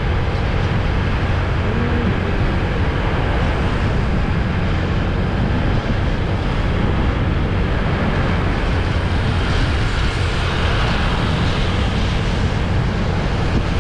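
Riding on a motorcycle: steady wind buffeting on the action camera's microphone over the engine and road noise, a continuous low rumble.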